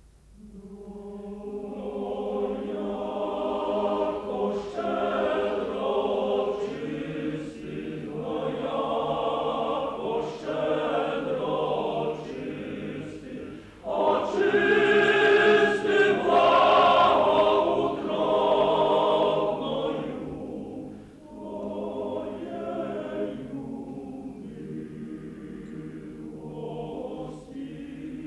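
Choir singing in sustained phrases. It swells in over the first couple of seconds, is loudest about halfway through, then continues more softly.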